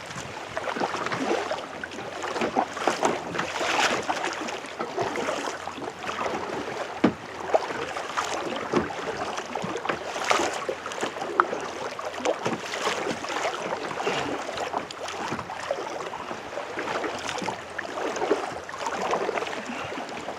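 Kayak paddling: water splashing and dripping off the paddle blades, stroke after stroke, with water lapping along the hull.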